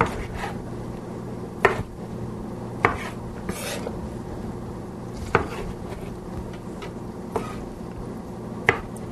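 Chef's knife cutting artichoke hearts into quarters, each stroke knocking on the cutting board: about half a dozen sharp knocks a second or two apart.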